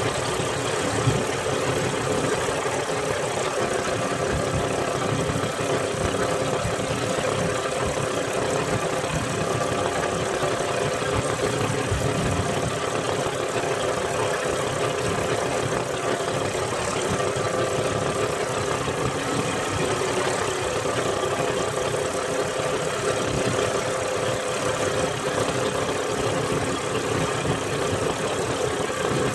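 Engine of a motorized outrigger boat running steadily under way, a constant hum with no change in speed.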